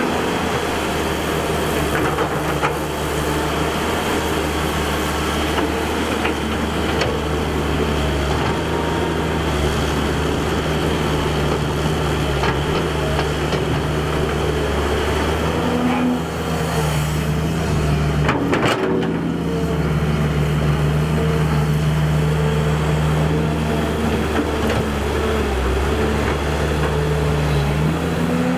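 Excavator's diesel engine running steadily under working load, with a few short knocks.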